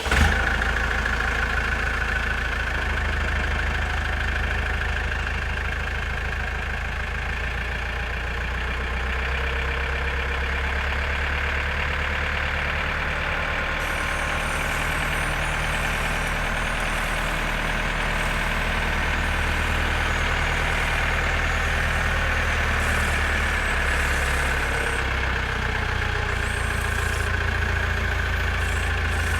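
JCB 4CX backhoe loader's diesel engine running steadily.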